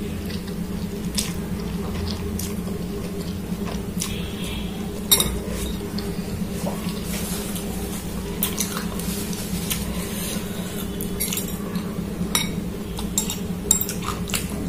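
Metal fork and spoon clinking and scraping against a glass bowl of noodles, with scattered sharp clinks, the loudest about five seconds in, over a steady low hum.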